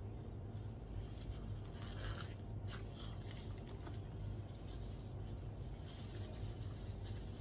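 Faint eating sounds: scattered soft clicks and crackles of food being handled, peeled and bitten, over a steady low hum.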